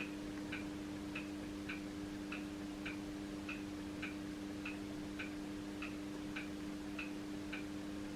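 Regular, evenly spaced ticking, a little under two ticks a second, over a steady low hum.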